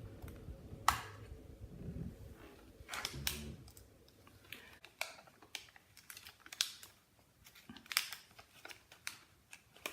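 Scattered light clicks and taps, with a little plastic crinkling, as laptop memory sticks and their packaging are handled.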